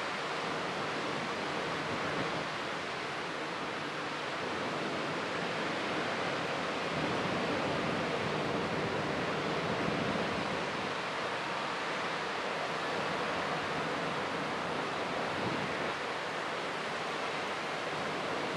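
Steady rushing noise of typhoon wind, swelling a little now and then.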